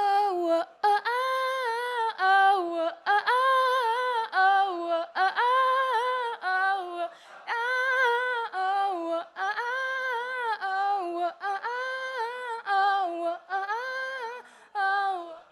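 A woman singing wordless 'ah' and 'ooh' backing vocal parts, a cappella, in short phrases of about a second that leap back and forth between two pitches.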